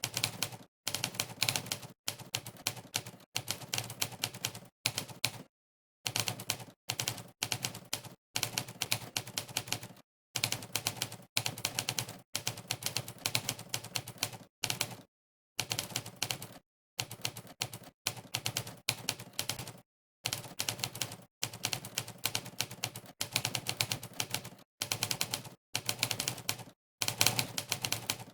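Monkeytype's synthesized typewriter keystroke sound effect, one clack per keypress, in fast runs of clicks broken every second or so by short silent gaps.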